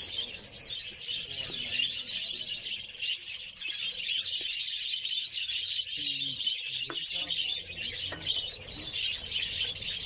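A colony of budgerigars chattering without pause: a dense, steady mass of many overlapping high chirps and warbles.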